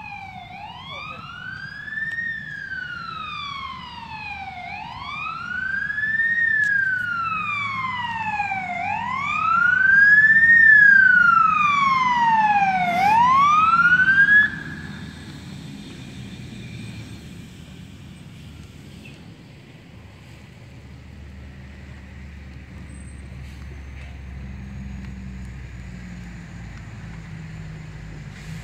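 Emergency vehicle siren on a slow wail, rising and falling about every four seconds and growing louder as it approaches, then cutting off suddenly about halfway through. A low engine rumble follows in the latter part.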